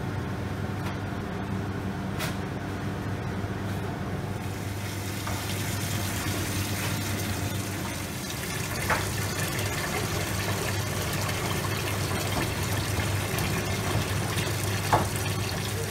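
Tap water pouring steadily into a stainless-steel bowl of live lobsters in a sink, filling it, with a steady low hum underneath. A few light knocks come about two, nine and fifteen seconds in.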